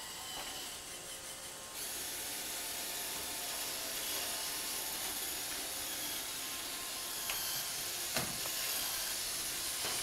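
Roomba robotic vacuum cleaner running with a steady hissing whir, which gets louder about two seconds in, and a single knock about eight seconds in.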